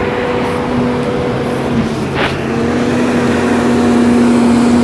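Volvo EC210B hydraulic excavator's diesel engine running steadily with a whine, its note growing louder about halfway through as the machine works to free itself. One short sharp knock is heard near the middle.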